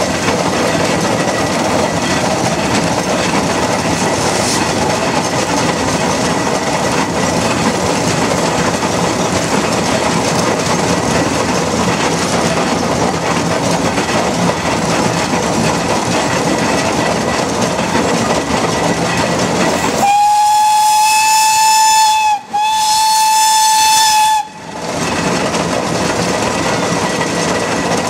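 Aveling & Porter steam road roller travelling on the road with a steady rumble, then, about 20 seconds in, a steam whistle gives two long blasts at one steady pitch, each about two seconds, the second following almost at once.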